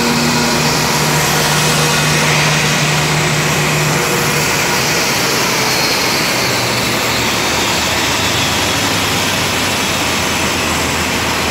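Jet aircraft engine noise: a loud, steady rushing hiss with a low hum underneath that fades about four seconds in.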